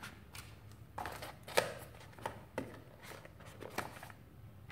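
Hands handling a cardboard phone box, its lid and its paper inserts: a string of irregular light taps, clicks and rustles.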